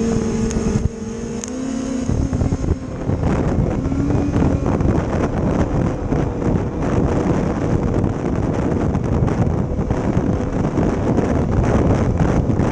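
Yamaha snowmobile engine running under way, its steady tone stepping up in pitch about two seconds in and rising again shortly after as the sled speeds up. Heavy wind buffeting on the helmet-mounted microphone then largely covers the engine.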